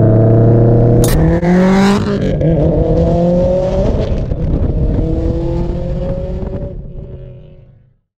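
2004 Subaru STI's turbocharged 2.5-litre flat-four engine accelerating hard, its pitch climbing. A sharp crack comes about a second in, after which the pitch climbs again. The sound then fades away and cuts off just before the end.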